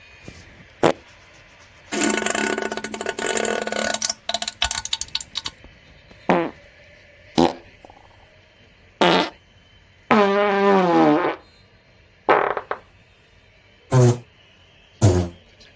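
A series of about nine fart sound effects: short sharp blasts, one long buzzy fart that breaks up into crackling sputters, and one drawn-out fart whose pitch wobbles.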